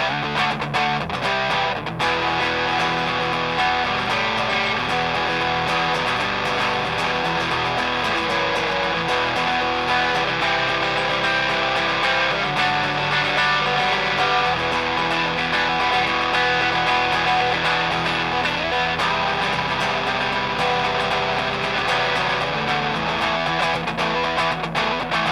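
Electric guitar played through a DIY-built Grindcustoms Feng Drive overdrive pedal, giving an overdriven guitar tone, with chords and lines played continuously.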